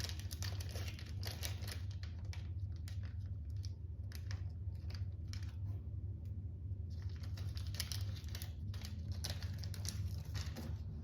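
Irregular small clicks and rattles of hard plastic parts of a 3D-printed toy folding knife being handled and worked, over a steady low hum.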